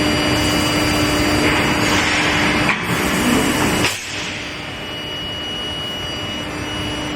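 Long-shaft induction hardening machine running: a steady hum and a thin high whine over a constant hiss, easing somewhat in level about four seconds in.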